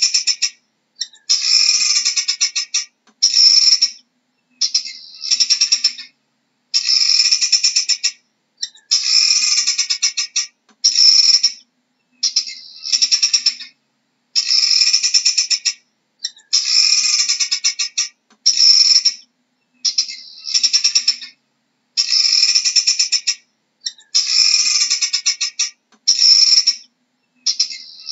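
Helmeted guineafowl calling: harsh, rapid rattling bouts, each about one to two seconds long, repeated over and over with short pauses between them.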